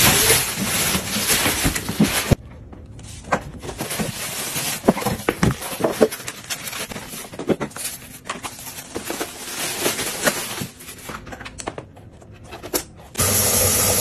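Packaging being handled: plastic wrap rustling, then cardboard scraping with scattered knocks and clicks. About thirteen seconds in, a tap starts running water into a plastic water tank.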